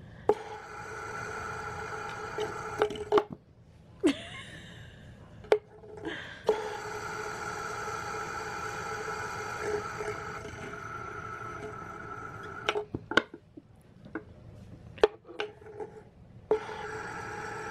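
Fidget spinner whirring steadily on its bearing in three spells, each started and cut off with sharp clicks as it is set spinning and stopped by the cat. Scattered clicks fall in the quieter gaps between spells.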